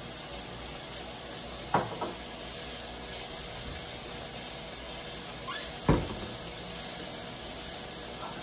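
Two sharp knocks about four seconds apart, the second the louder, each with a lighter tap close by, over a steady background hiss.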